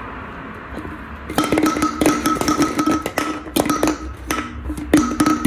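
Nitrogen widget, a small plastic ball, rattling inside an empty Guinness Draught can as the can is tilted and shaken, giving irregular sharp clicks that start about a second in.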